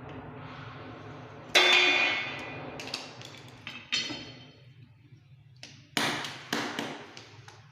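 Metal tools and pipe fittings clanking during the fitting of a bathtub mixer: a loud ringing clank, small clicks, a second ringing clank, then two sharp knocks.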